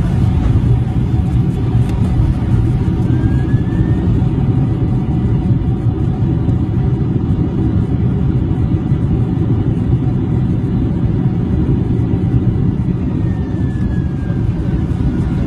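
Airliner on approach to landing: a steady, loud low rumble of engines and rushing air, with faint steady tones above it.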